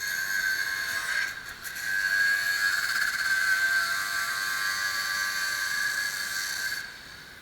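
A handheld electric power tool, most likely an angle grinder, running with a steady high-pitched whine and hiss. It falters briefly about a second and a half in, then runs on and stops near the end.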